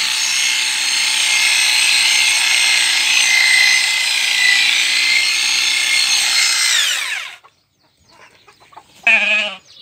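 Electric 650 W sheep-shearing clipper running with a steady high whine as it cuts through fleece, then switched off about seven seconds in, its pitch falling as the motor winds down. A short call follows near the end.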